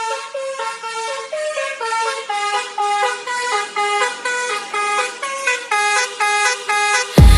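A multi-tone musical vehicle horn playing a quick tune of short stepped notes, each rich in overtones. Loud dance music with a heavy beat cuts in just before the end.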